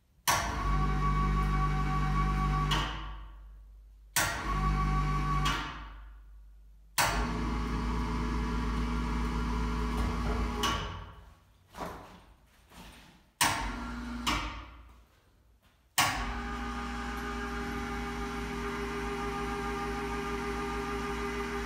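Pittsburgh 440 lb electric ceiling hoist's motor running under the load of a man of about 170 lb hanging from its hook: about five short runs that each start abruptly and wind down with a falling whine, then a steady run with a low hum through the last six seconds.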